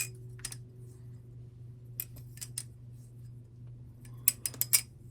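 Butterfly knife (balisong) being flipped by hand: sharp metallic clicks of the handles hitting the tang and each other. There are a few scattered clicks, then a quick run of about five near the end, over a steady low hum.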